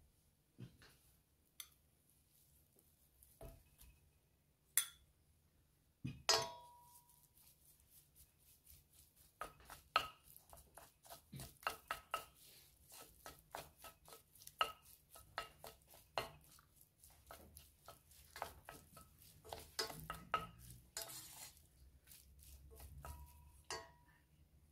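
Kitchen utensils clinking, tapping and scraping against a stainless steel pan and a ceramic bowl as mashed potato is spooned into the pan and stirred. A few separate clinks come first, two of them sharp and ringing, then a quick run of small taps and scrapes for the second half.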